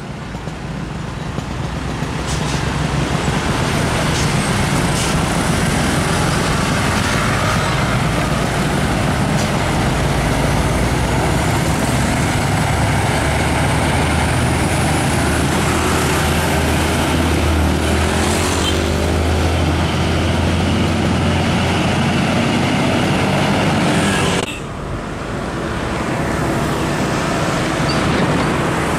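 Diesel engine of a Mercedes-Benz Actros tractor-trailer running as the truck turns and pulls past, a steady deep drone over road traffic noise. About 24 seconds in the sound drops suddenly, and another diesel truck is heard approaching.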